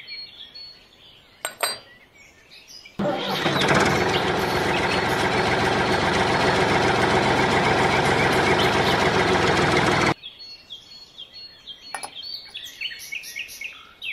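An engine running steadily, starting abruptly about three seconds in and cutting off sharply about seven seconds later. Birds chirp faintly before and after it.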